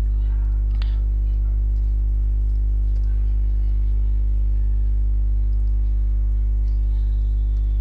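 Steady low electrical mains hum from the recording chain, with a few faint keyboard clicks as a sentence is typed.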